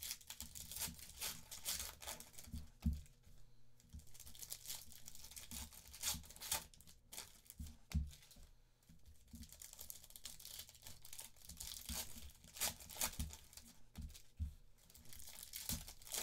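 Foil trading-card pack wrappers of 2023 Panini Phoenix Football being torn open and crinkled by hand, in a run of crackling rustles, with a few dull knocks of handling on the table.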